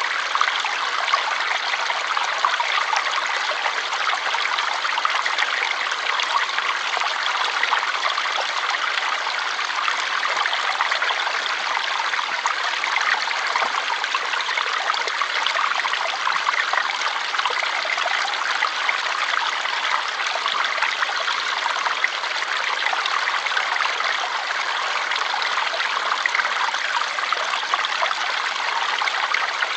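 Flowing water: a steady, even rush with a fine trickling texture that does not change.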